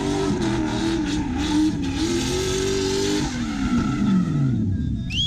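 BMW E36's turbocharged V8 held high in the revs while the car drifts sideways, rear tyres scrubbing and skidding on the dusty tarmac. The revs waver under the throttle, then fall away over the last couple of seconds as the car slides past and backs off.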